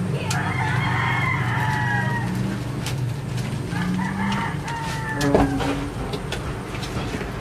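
Rooster crowing twice, a few seconds apart, over a steady low hum.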